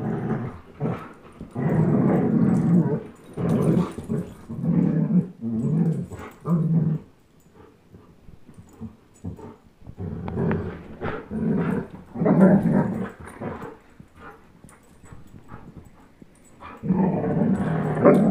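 Dog play-growling during a tug of war over a rope toy, in rough bouts of one to three seconds with quieter pauses between.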